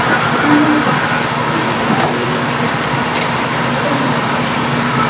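Steady rushing background noise, with a couple of light clicks as metal tongs knock against a steel stock pot while boiled corn cobs are lifted out.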